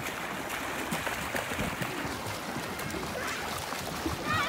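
Steady splashing of water as children kick their legs to swim across a pool on inflatable floats, with a brief high-pitched voice near the end.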